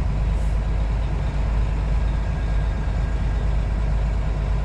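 Semi truck's diesel engine droning steadily with road noise, heard inside the cab while driving.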